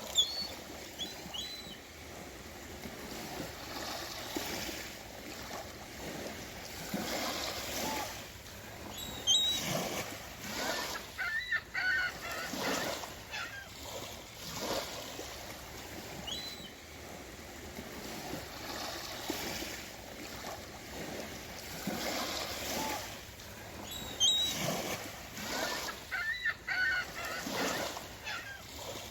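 Swans giving short honking calls, several in clusters, over a steady wash of water noise.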